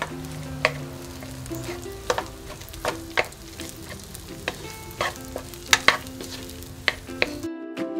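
Wooden spatula stirring and tossing rice in a hot nonstick wok, with irregular scrapes and knocks over a steady frying sizzle. The frying sound cuts off suddenly near the end.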